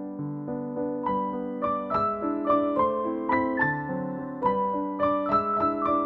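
Background keyboard music, a calm melody of single notes. About a second in, a higher line joins and notes come roughly every half second.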